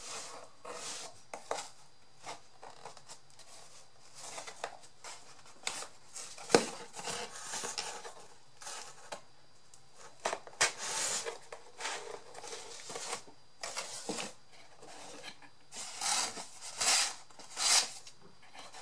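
Hands fitting cardboard craft pieces together on a tabletop: irregular rustling, scraping and small clicks as a cardboard wheel is pushed into a punched hole, with a sharp knock about six and a half seconds in.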